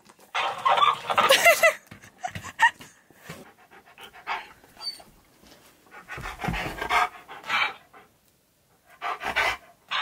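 Husky-malamute mix vocalizing in several short bursts with wavering pitch, panting between them.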